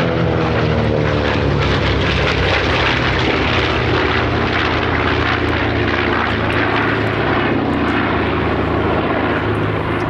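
Piston-engined propeller warbird flying past: the engine and propeller tone drops in pitch as it passes, then settles into a steady drone.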